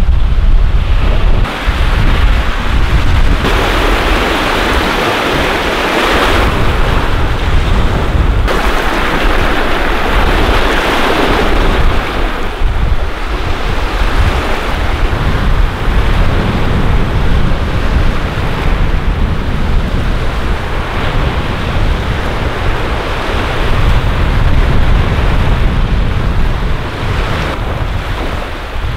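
Strong wind buffeting the microphone over a steady rush of water. The wind swells in gusts about four seconds in and again about nine seconds in.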